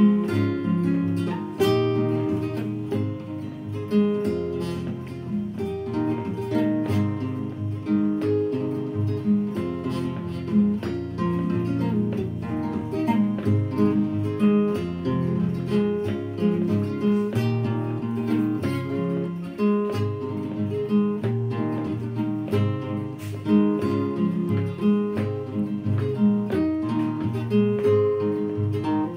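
Background music: acoustic guitar playing a run of plucked and strummed notes.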